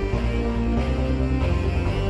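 Background music made of sustained low notes and held chords, the bass note shifting a few times.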